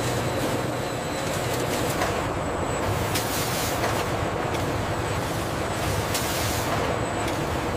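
Industrial printing and inspection machinery running steadily: a dense mechanical rumble and hum with faint light clicks every second or so.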